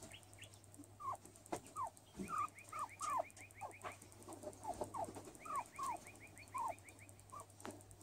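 Skinny pig (hairless guinea pig) making a string of short squeaky calls, each sliding down in pitch, roughly two a second with irregular gaps. Twice, a run of quick faint high ticks, about seven a second, sounds behind the calls.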